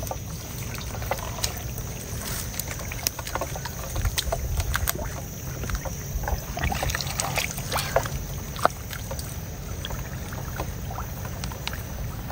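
Hands and a plastic basket working through shallow muddy water: irregular squelches, splashes and wet slaps as mud and water are scooped, over a steady low rumble.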